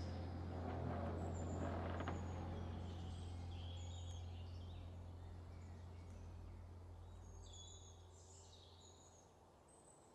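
Birds chirping in short high calls over a low steady hum, the whole fading out gradually.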